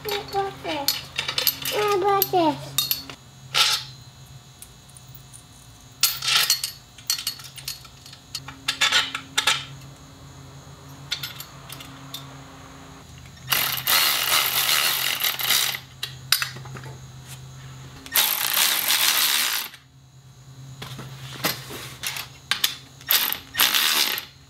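Folding steel-tube body panel work stand being unfolded and set up: scattered metal clinks and clanks from its legs and chain, with two longer rasping noises of about two seconds each, around halfway and a few seconds later.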